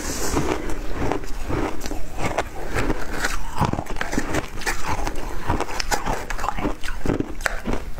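Close-miked crunching of frozen flavoured ice being chewed, then a metal spoon scraping and crunching through crumbly ice in a glass bowl. Dense, irregular crackles and snaps throughout.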